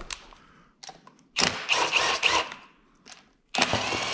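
Cordless drill running in two short bursts: one of about a second, then a shorter one near the end.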